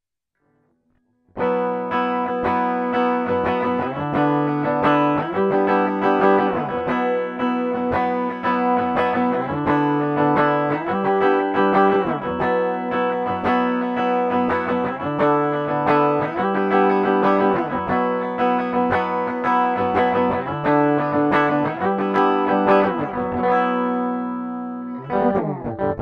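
Schecter C1 Elite electric guitar played through a clean, dry tone with no effects: chords and held notes ring out and change every second or two, with some sliding notes, starting after about a second and a half of silence.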